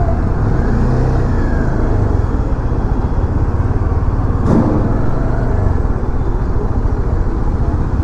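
Bajaj Dominar 400's single-cylinder engine running at low speed, with steady road and traffic noise around it.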